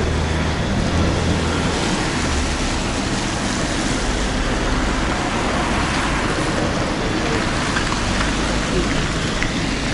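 Steady outdoor background noise, with a low hum during the first two seconds or so.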